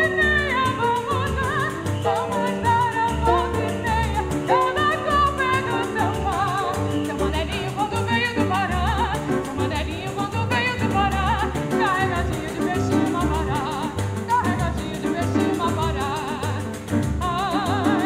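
A female classical soprano sings a Brazilian ciranda with wide vibrato, over piano and double bass. The bass notes pulse steadily.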